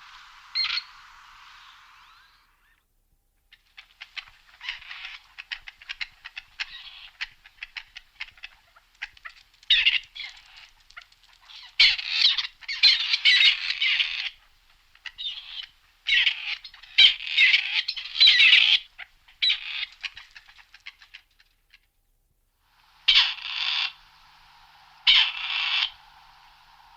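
Grey partridge calling: a long run of rapid, harsh, rattling chatter, loudest in the middle. Near the end come two short, loud grating calls.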